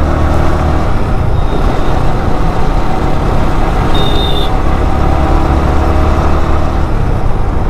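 A vehicle engine running steadily under a heavy low rumble, with a brief high tone about four seconds in.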